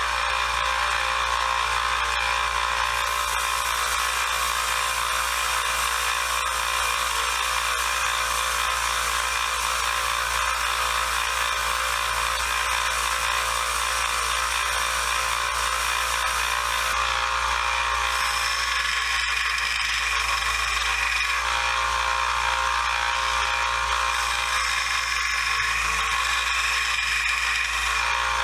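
Electric power tool running steadily with a continuous whir, its pitch shifting slightly about two-thirds of the way through, used to clean up the screwdrivers.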